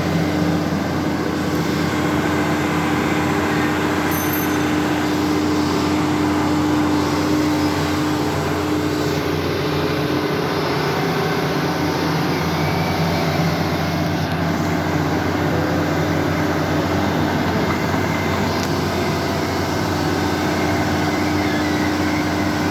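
A large construction machine's engine running steadily: a constant loud drone with an unchanging hum.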